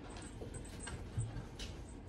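A cat climbing onto the top of a fabric cat house, with a soft low thump about a second in and a few faint clicks over quiet room tone.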